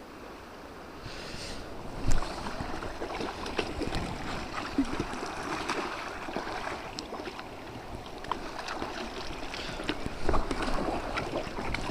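Water splashing and sloshing around a kayak as the paddler capsizes and tries to roll back up, with a sharp thump about two seconds in and a flurry of louder splashes near the end. The roll attempt in a large, non-playboat kayak fails to come up.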